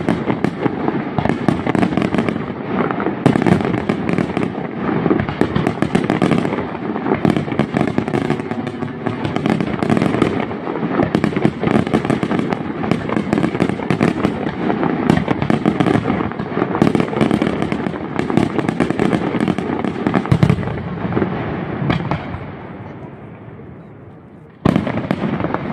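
Aerial firework shells bursting in a dense, rapid barrage of bangs and crackle. It tapers off near the end, and then a fresh loud burst comes just before the close.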